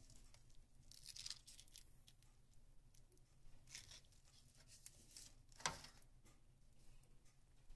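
Metal tongs moving chicken breasts in a nonstick frying pan: a few faint scrapes and rustles and one sharp click of the tongs against the pan a little after five and a half seconds in.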